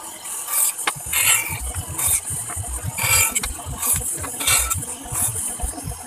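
RYU band saw running and cutting through a wooden plank, its high hissing cut noise swelling and fading over and over as the board is fed into the blade.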